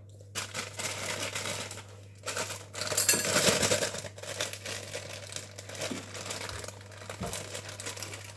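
Packet of cake mix crinkling and rustling as it is handled and worked open, loudest about three seconds in.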